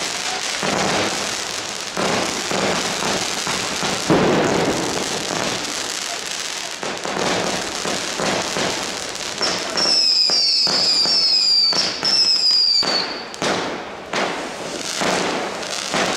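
New Year's Eve fireworks going off: continuous crackling and hissing with repeated firecracker bangs, one heavy bang about four seconds in. From about ten seconds in, a run of short whistles falls in pitch, then more sharp bangs follow.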